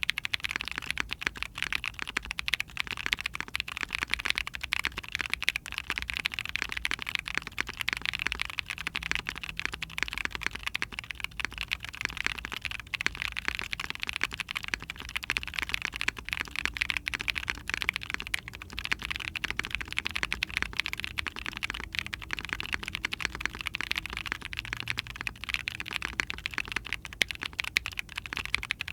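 Continuous fast typing on a mechanical keyboard with Tecsee Ice Milk tactile switches in a POM plate, GMK keycaps on top: a dense, unbroken stream of deep keystroke clacks. The switches are described as deep sounding, with noticeable scratch and leaf ping.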